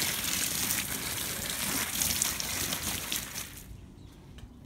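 Water spraying from a garden hose onto plant leaves and a wooden fence, a steady rushing spray that stops about three and a half seconds in.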